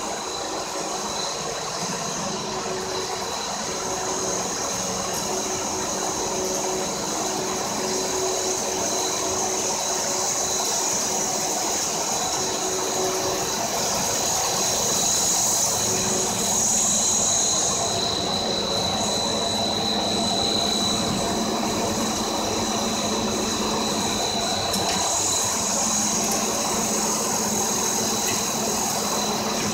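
Twin-screw artificial rice extruders running: a steady machine drone with a constant high whine held on one pitch.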